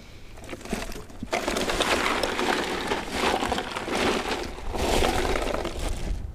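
Ice crunching and rattling in a boat's cooler as hands dig a fish down into it, a dense crackle that starts about a second in.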